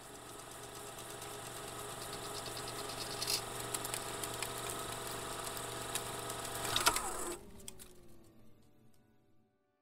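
Film projector sound effect: a mechanical whirring clatter that builds for about seven seconds, stops with a clack, then the motor winds down with a falling whine that fades out.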